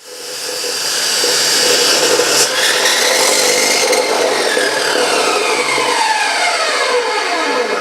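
Chop saw running and cutting, a loud steady whir and grind. From about two and a half seconds in, a whine slides steadily down in pitch as the motor slows.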